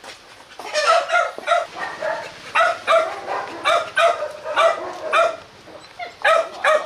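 Rottweiler barking over and over in short, excited barks, a dozen or more in quick runs of two to four with brief pauses.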